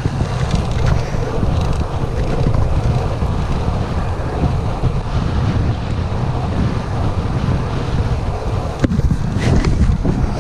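Wind buffeting the microphone of a camera on a moving road bike: a steady low rumble, with one sharp click near the end.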